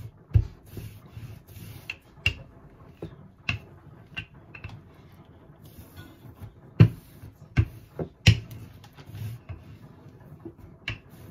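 Wooden rolling pin rolling French bread dough flat on a countertop: several sharp wooden clacks at uneven intervals, the loudest about seven seconds in, with soft rubbing of the pin over the dough in between.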